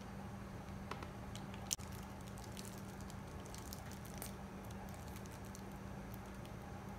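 Faint handling sounds: parchment paper crinkling and a plastic piping bag squished as Nutella is squeezed out, scattered small clicks and crackles with one sharper click near two seconds in, over a steady low hum.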